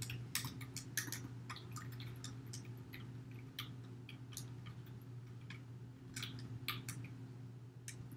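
Typing on a computer keyboard: quick, irregular key clicks, some louder than others, over a steady low hum.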